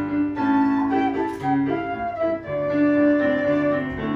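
Quena (Andean notched end-blown flute) and piano playing a melody together, with held flute notes over piano accompaniment.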